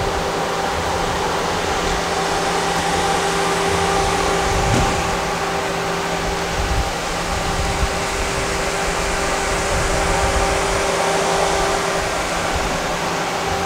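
Steady machine hum: a constant hiss with a few unchanging low tones beneath it.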